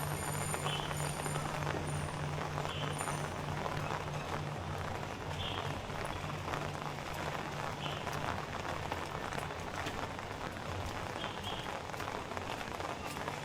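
Steady rain falling on a city street, with a steady low hum underneath.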